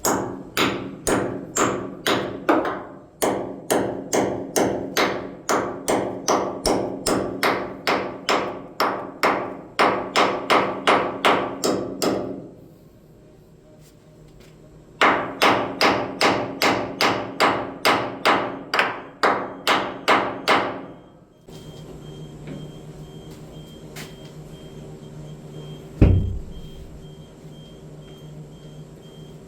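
Hammer driving a tube plug into the end of a leaking boiler tube: steady, evenly spaced metal strikes at about two and a half a second in two long runs with a short pause between. Later the hammering stops, leaving a steady low hum and one heavy thump.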